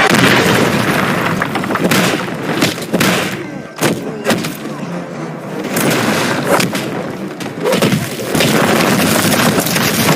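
Fight sound effects: heavy booming impacts and thuds over a dense rumble, with half a dozen sharp hits a second or two apart.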